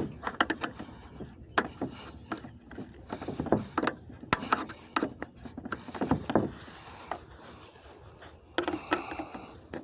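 Old wood chisel prying up the metal edges that clamp a radiator's plastic tank: a run of irregular sharp clicks and knocks of metal on metal.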